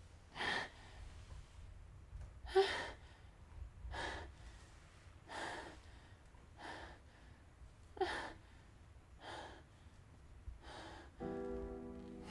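A woman's frightened, gasping breaths, about one every second and a half, a few with a faint voiced catch. Music with a held chord comes in near the end.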